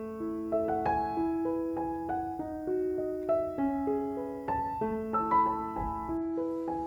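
Background music: a gentle piano melody of single notes and chords.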